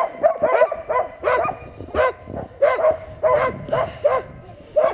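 Harnessed sled dogs, Alaskan husky and malamute mixes, barking and yipping in short, rapid calls, about three a second: the excited barking of a team held back and eager to run.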